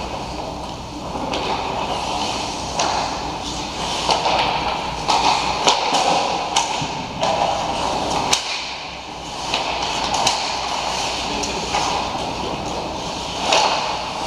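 Ice hockey skates scraping and carving on the ice, broken by several sharp clacks of sticks and puck, the sharpest a little past halfway.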